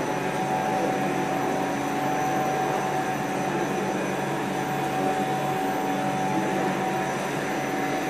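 Small fishmeal processing machine running steadily: an even mechanical hum with a few constant whining tones that hold unchanged.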